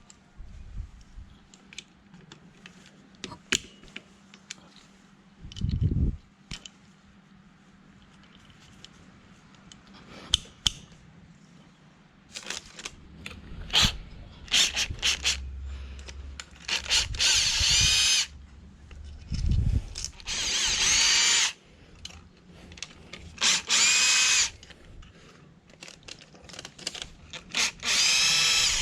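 Electric power drill run in four short bursts, its whine rising in pitch as the motor spins up each time, among scattered clicks and knocks of tools and parts being handled.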